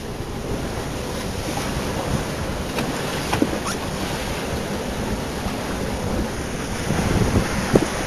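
Wind buffeting the microphone and water washing past the hull of a Contessa 26 sailing yacht under way, with a few faint light knocks. The buffeting grows stronger near the end.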